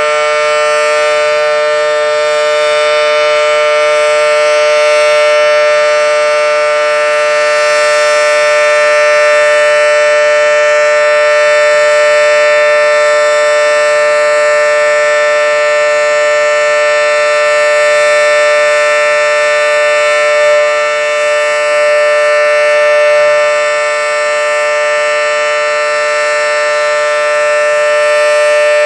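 Federal Signal Model 7T outdoor warning siren sounding a loud, steady two-note chord, held at a constant pitch, with only slight swells in loudness.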